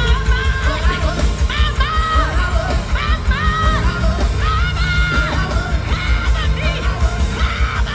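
Live gospel band music with a fast, driving beat of drums and bass, voices singing and shouting over it, in the manner of a praise break.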